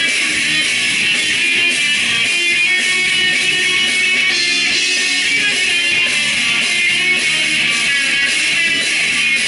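Live band playing loud, guitar-heavy music, with electric guitars strummed hard and a steady, unbroken wall of sound.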